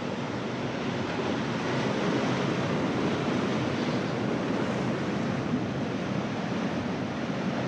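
Ocean surf breaking and washing against a rocky shoreline: a steady rushing roar with no distinct breaks.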